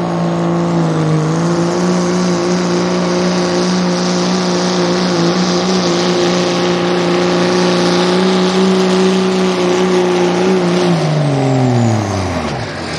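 Diesel engine of a second-generation Dodge Ram pickup held at high revs under full load as it drags a weight-transfer pulling sled. The note is loud and nearly steady, dipping slightly about a second in. Near the end the revs fall away quickly as the driver lets off at the end of the pull.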